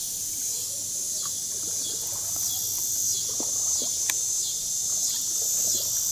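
Steady high-pitched chorus of insects, with faint small splashes and drips of water scattered through it.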